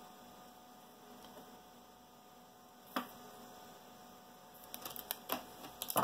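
Hand sewing: soft clicks and rustles of fingers working a needle and thread to tie off a knot in a small piece of stitched fabric, over a faint steady electrical hum. There is a single click about halfway through, and a quicker cluster of small clicks near the end.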